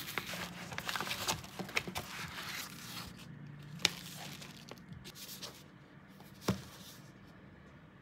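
Cardboard book mailer being torn open by hand, with a dense run of paper tearing and crinkling that thins out after about three seconds. Two sharp knocks follow, a little before the middle and again near the end, as the book is handled on the table.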